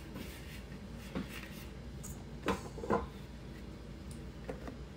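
Soft handling sounds from a plastic bowl and a stainless steel stand-mixer bowl being handled: a few light knocks, the two clearest about two and a half and three seconds in, with fainter ones near the start and end.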